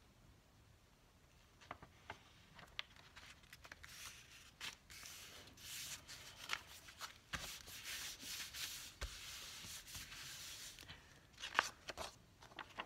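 Hands rubbing paper pages flat in a handmade journal: a soft rubbing that sets in about four seconds in and runs for several seconds. Near the end come a few sharper paper crinkles as a page is lifted and turned.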